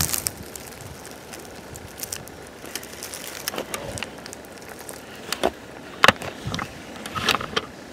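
Footsteps crunching through dry fallen leaves and twigs, with irregular crackles, the loudest about six seconds in.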